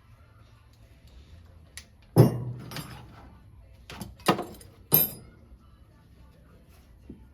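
Metal tools or parts being handled: a few sharp clanks and knocks, the loudest about two seconds in and two more a little after four and five seconds, with lighter clinks in between.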